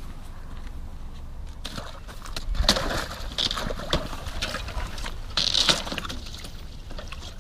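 Thin river shore ice being broken up by a man wading in the shallows with a hand tool: cracking, crunching and clinking of ice with short bursts of splashing. It starts about two seconds in, after a quieter stretch.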